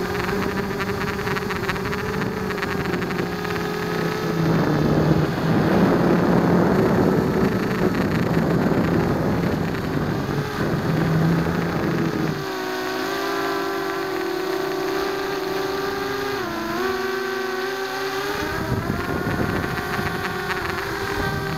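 Blade 200 QX quadcopter's brushless motors and propellers whining in flight, heard from the camera mounted on it. The whine changes pitch with the throttle; it grows louder and rougher from about four to twelve seconds in, and dips in pitch briefly around three-quarters of the way through.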